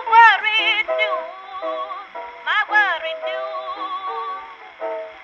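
Background music: a melody line, sung or played, that slides and bends between notes over a thin accompaniment with no bass.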